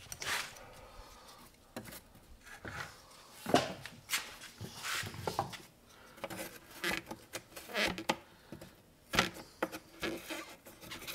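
A knife blade scraping hardened Gorilla glue off the edge of a pressed-wood drawer panel, in short irregular strokes with a few sharper scrapes and knocks.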